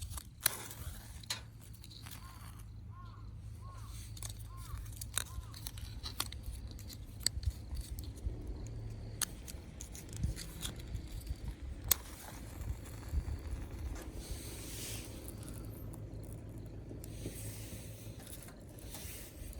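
Scattered sharp clicks and scraping sounds from hands-on camp cooking over a low steady rumble, with two short hissing stretches near the end.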